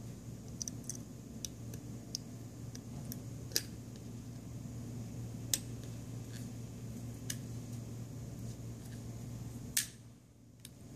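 Scattered small clicks and taps from an LG G3 smartphone being taken apart by hand, its ribbon-cable connectors being unclipped from the circuit board. Under them runs a low steady hum.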